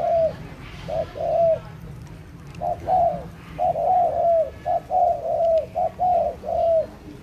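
A bird calling in short, arched cooing notes, several in quick succession, with a break about two seconds in.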